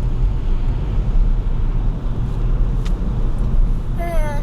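A boat's outboard motor running steadily, a loud low rumble. Near the end a high voice briefly calls out over it.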